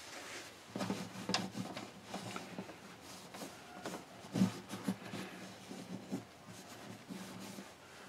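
Microfiber cloth rubbing and wiping over the finished top of an unstrung Seagull S6 acoustic guitar, an irregular rustle with a few soft knocks of handling against the body.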